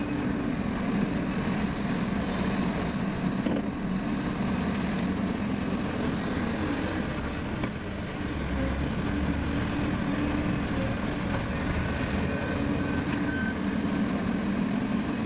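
Heavy diesel earthmoving machinery running steadily at a work site, with a backup alarm beeping at an even pace over the last few seconds.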